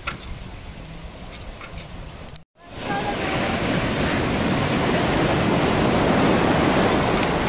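Surf breaking and washing against the hull of a grounded sailing yacht: a quieter wash at first, then, after a brief break about two and a half seconds in, a much louder steady rush of breaking waves.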